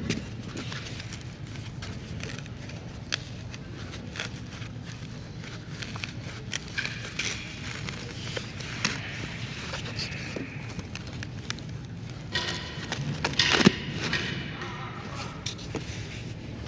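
CNC oscillating-knife foam cutting machine running: a steady low hum with scattered clicks and rustling. The loudest burst of clatter comes about two thirds of the way in.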